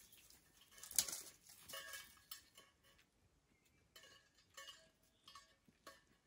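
Faint, irregular footsteps and knocks of a hiker walking a rough forest dirt road, with a few brief clinks; the sharpest knock comes about a second in.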